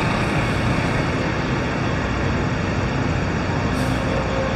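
Diesel engine idling steadily: an even rumble with a broad hiss over it, unchanging throughout.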